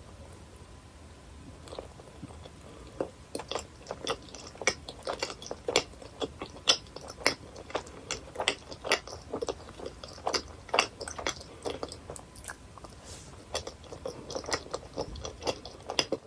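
Close-miked chewing of chewy gummy jelly candy: a quick, uneven run of sharp mouth smacks and clicks, starting about two seconds in.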